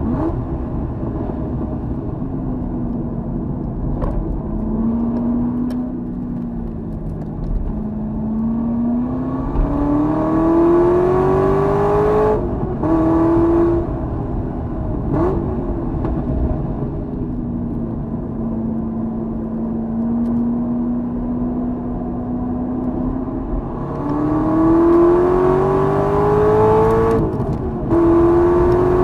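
Corvette Z06's V8 running hard at racing speed: its pitch climbs under acceleration, drops after brief breaks for upshifts about 12 seconds in and near the end, and holds a steady drone in between. Wind and road noise run underneath.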